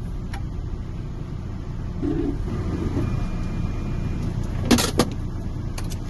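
Steady low rumble with two sharp metallic clicks close together near the end, during key cutting on a locksmith's key-cutting machine set to the decoded depths.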